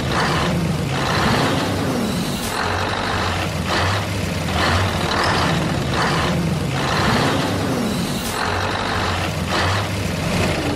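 Sound effect of a heavy truck engine running, its level swelling and easing in a pattern that repeats every few seconds.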